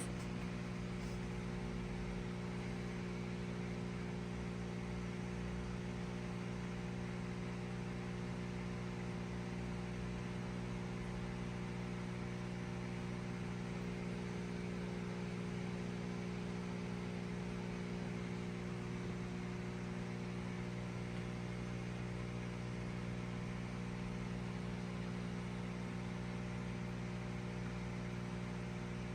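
Aquarium equipment running with a steady low electrical hum, several even tones stacked together, over a faint hiss.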